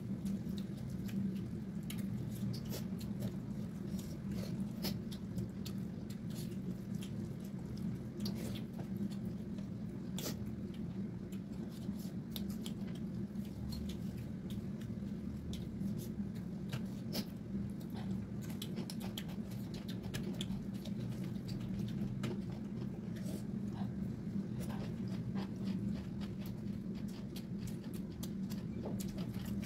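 Close-up eating sounds of people chewing rice and pork trotters with their mouths, with many short wet clicks and smacks, over a steady low hum.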